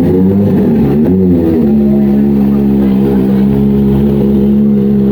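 Kawasaki Ninja ZX-25R's 250 cc inline-four revving through an Austin Racing exhaust. It blips up and down twice in the first second and a half, then holds a steady rpm.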